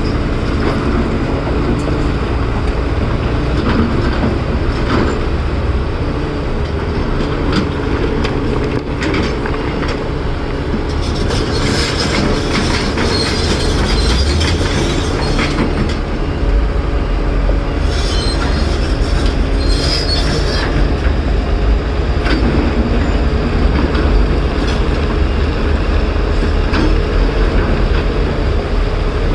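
Caterpillar 336 excavator's diesel engine running steadily, with two stretches of high metallic squealing and scraping, about eleven seconds in and again about eighteen seconds in.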